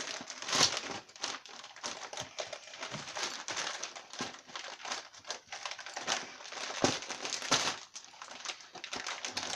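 Gift wrapping paper crinkling and tearing in irregular crackles as a pet opens a wrapped present.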